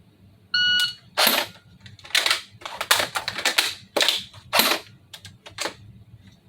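A shot timer's electronic start beep about half a second in, then a string of about seven sharp, loud bursts from an airsoft FN P90 replica firing, spread over some four seconds, with the selector pushed all the way to full auto.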